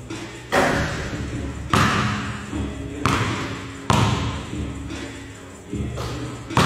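A basketball thudding during shooting practice in a gym: the shot striking the rim and backboard, bouncing on the court floor and being passed back, about six sharp hits roughly a second apart, each echoing in the large hall.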